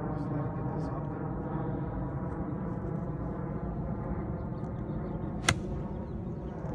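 A small engine running steadily at an even pitch, with one sharp click about five and a half seconds in.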